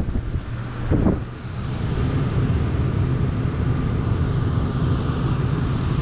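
Rooftop RV air conditioner's blower fan running steadily, pushing air through the ceiling vent, with the compressor not yet running.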